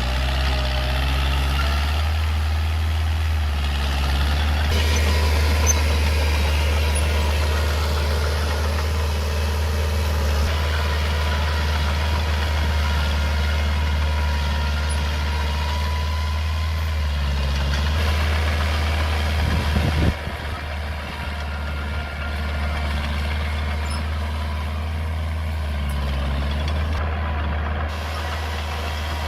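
Mini Komatsu bulldozer's diesel engine running steadily as it works, its note shifting a few times as the load changes, with a brief drop in level about two-thirds of the way through.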